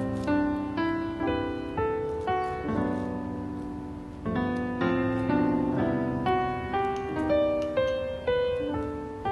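Background piano music: a slow melody of single struck notes and chords, each ringing out and fading before the next.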